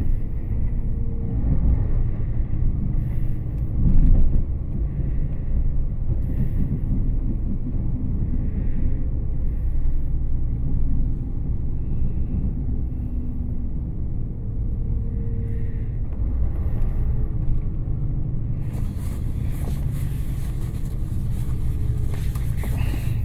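Passenger train running, a steady low rumble heard from inside the carriage. About three-quarters of the way through, a broad hiss joins the rumble.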